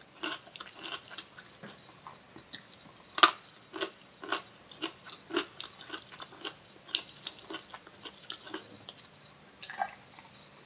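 Close-miked chewing of a raw vegetable stick: irregular crisp crunches, about one or two a second, the loudest about three seconds in.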